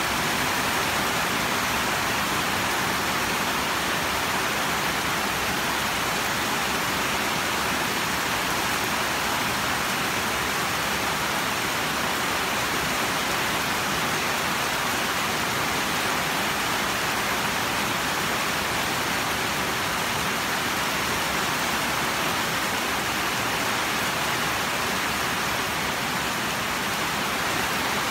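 Steady rain falling, an even, unbroken hiss with no single drops or thunder standing out.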